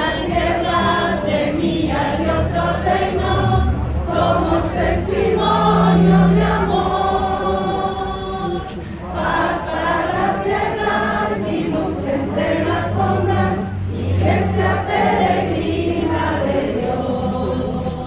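A crowd of people singing a church hymn together, with long held notes in a slow, continuous melody.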